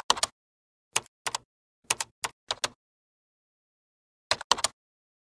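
Computer keyboard typing sound effect: sharp keystroke clicks in small irregular clusters of two or three, with dead silence between, accompanying text being typed out letter by letter.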